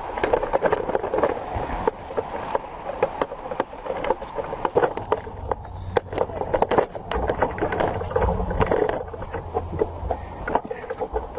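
Footsteps and scuffs on a dirt hiking trail, many irregular clicks and knocks, with indistinct voices of other hikers.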